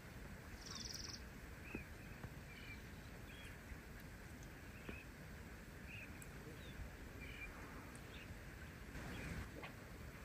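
Small waves lapping on a rocky lakeshore, faint, with a bird giving short high chirps about once a second.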